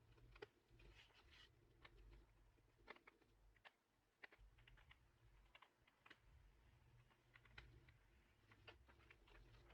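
Faint, irregular small clicks and ticks of a 1.5 mm Phillips screwdriver working the screws out of a Samsung Galaxy S8's internal frame, with metal tool tips touching the phone and screws being set down.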